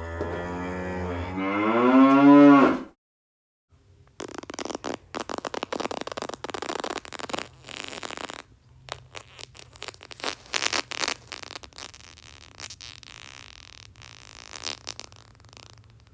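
A cow's moo, one long wavering call rising in pitch, lasting about three seconds and the loudest thing here. After a short silence comes a long stretch of dense crackling and clicking over a low hum, getting fainter near the end.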